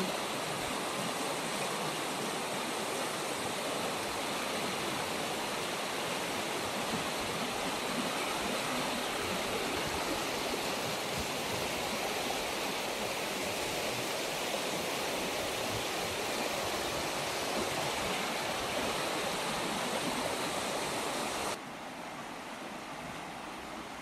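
A river rushing in steady, noisy rapids over stones and around old wooden pilings. Near the end the sound drops suddenly to a quieter level.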